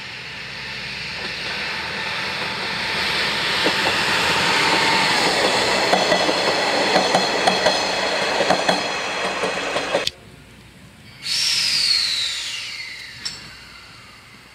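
JR KiHa 100 diesel railcar pulling away past the camera, its diesel engine running and its wheels clacking over rail joints. The sound swells to a peak and then cuts off abruptly about ten seconds in. A short burst of hissing with a falling whistle-like tone follows.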